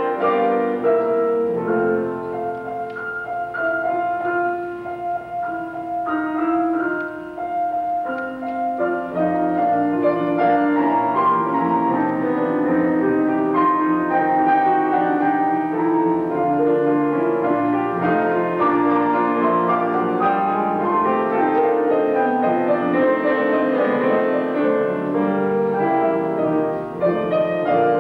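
Two grand pianos playing together: a duet of Filipino airs arranged for two pianos. A softer passage in the first several seconds swells to a fuller, louder texture from about nine seconds in.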